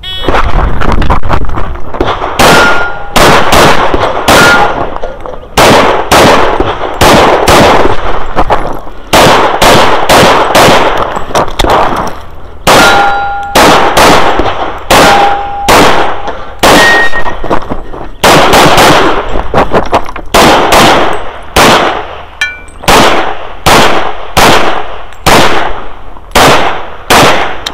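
Rapid pistol fire through a USPSA stage, shot after shot, mostly in quick pairs, with short pauses between strings. A few shots are followed by brief metallic ringing from struck steel targets.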